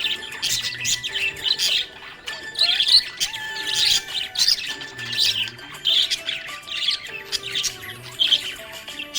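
Budgerigar chirping and warbling in quick, busy bursts, over background music with held notes.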